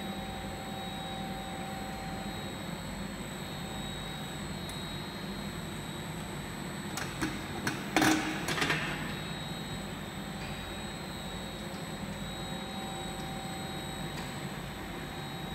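Tablet and capsule inspection machine running with its dust extraction unit: a steady hum with a few thin high whines. About halfway through come several sharp clicks and a short, loud rattle as the latch of a stainless-steel cabinet door is worked by hand.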